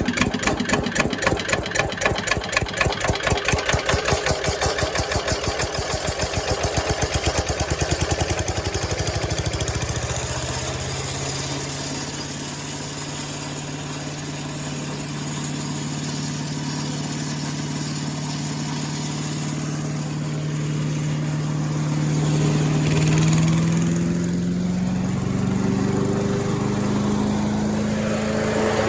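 Craftsman wood chipper's small gasoline engine running just after a pull start: uneven and pulsing for about the first ten seconds, then settling into a steady run. Its speed rises in steps over the last several seconds as it warms up.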